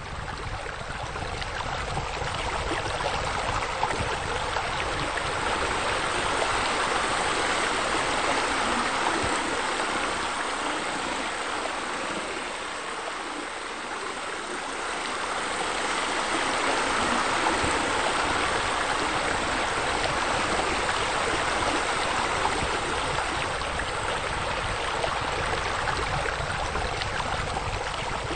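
Steady rush of flowing, splashing water, like a spillover or fountain pouring into a pool. It eases a little about halfway through and swells again.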